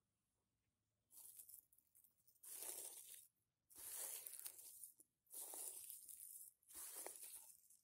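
Dry tulsi (holy basil) seed heads being crushed and rubbed by hand over a plate to free the seeds: a crackly rustling in five strokes of about a second each, with short pauses between.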